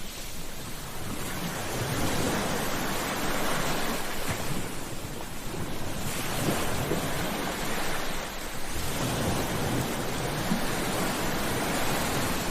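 Sea waves breaking and washing on a shore, the surf swelling and ebbing in slow surges every few seconds.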